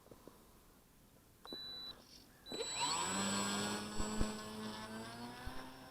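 Electric motor and propeller of a ParkZone Sport Cub RC plane. After two short blips, the motor spins up with a rising whine about two and a half seconds in for a takeoff off snow, then holds steady and fades as the plane flies away.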